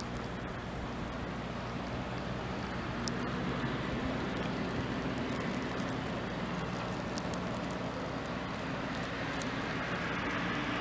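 Steady outdoor wind noise, with the low hum of a distant motor vehicle growing louder near the end.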